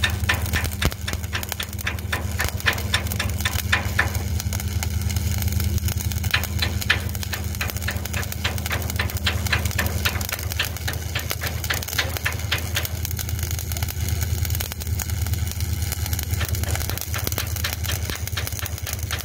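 Stick (shielded metal arc) welding in the overhead position: the arc crackles and sputters steadily as the electrode burns along the seam. Under it runs a steady low machine hum, one higher strand of which stops about ten seconds in.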